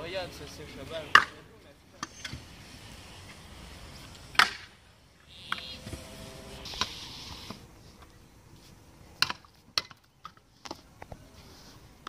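Stunt scooter wheels rolling on a concrete bowl, broken by several sharp clacks of the scooter striking the concrete and coping; the loudest comes about a second in and another at about four and a half seconds, with two more near the nine-second mark.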